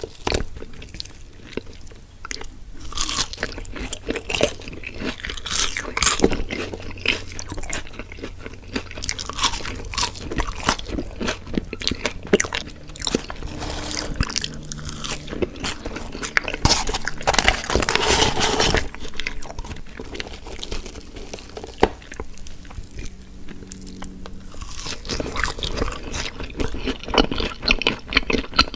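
A person chewing and crunching food close to the microphone, with irregular crackling bites and wet mouth sounds.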